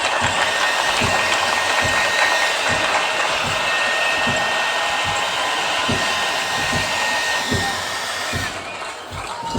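Crowd applauding: a dense, steady wash of clapping that eases a little near the end.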